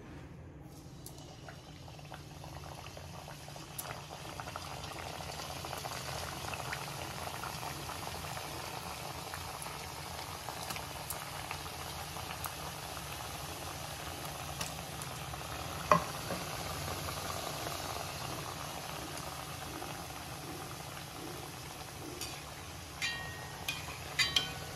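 Samosas frying in a pan of hot oil: a steady bubbling sizzle that builds over the first few seconds and then holds. There is a sharp click about sixteen seconds in, and a few small clicks near the end.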